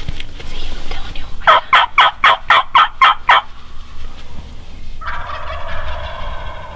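Wild turkey calling: a loud run of about eight evenly spaced yelping notes, then about five seconds in a rolling gobble starts and carries on.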